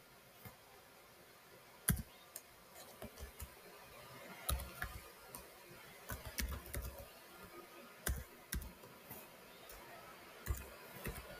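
Typing on a computer keyboard: irregular keystroke clicks, a first sharp one about two seconds in, then loose runs of keys.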